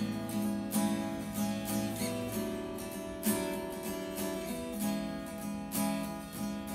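Background music of a strummed acoustic guitar, chords struck again and again in a steady rhythm.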